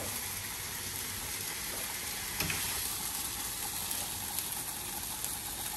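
Chicken breasts sizzling in a frying pan as they are lifted out, a steady frying hiss with a few faint clicks of the utensil.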